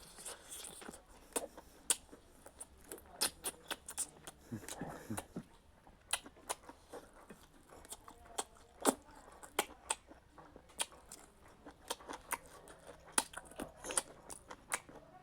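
A person chewing and crunching food close up, with many short, sharp, irregular crunches and mouth clicks.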